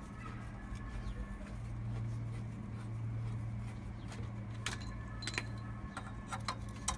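Hand tool worked on a copper pipe: a handful of sharp metallic clicks in the last couple of seconds, over a steady low hum.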